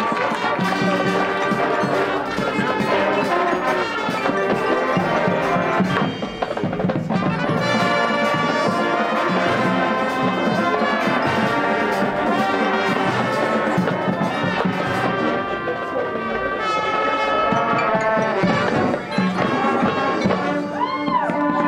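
High school marching band playing: brass over drums and front-ensemble percussion, loud and continuous.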